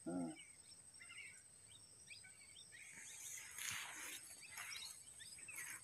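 Faint outdoor ambience of birds chirping in short repeated calls over a steady, high insect drone, with a brief hiss a few seconds in.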